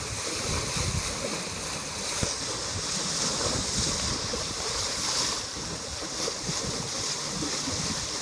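Wind buffeting the microphone over a steady hiss of water rushing past the hull of a trimaran sailing fast in a fresh breeze.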